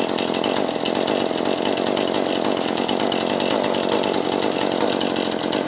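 Jonsered CS 2240 two-stroke chainsaw running steadily at high revs.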